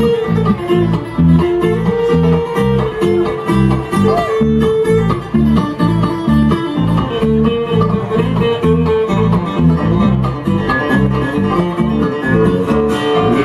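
Live bluegrass band playing an instrumental break between vocal lines: picked guitar and banjo over a steady, driving beat, with a sustained melody line on top.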